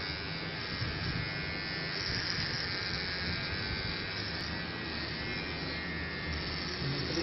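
Handheld electric trimmer buzzing steadily as it is run over a man's beard on the chin and neck.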